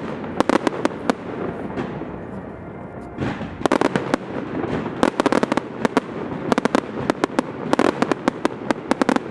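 Fireworks display: rapid volleys of sharp bangs and crackles, clustered every second or so, over a continuous rumble.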